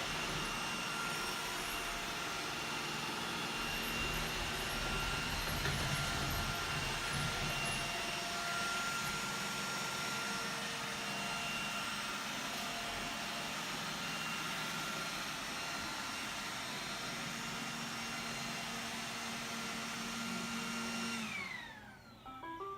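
iRobot Roomba 980 robot vacuum running steadily, its motors and brushes whirring with a high whine. Near the end the motors wind down with a falling whine and the robot starts its short electronic beep tune.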